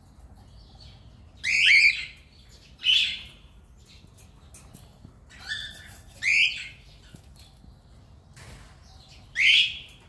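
Cockatiel giving short, harsh, squawking calls, about five of them at irregular intervals over ten seconds.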